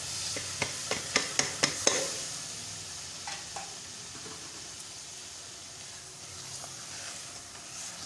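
Boiled split urad and chana dal poured into a pot of frying masala. About six sharp knocks on the pot come in the first two seconds, then the masala sizzles steadily.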